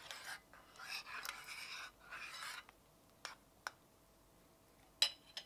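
Metal spoon stirring and mashing a thick oat-and-peanut-butter mixture in a bowl, a rough scraping for about two and a half seconds, then a few light taps of the spoon against the bowl.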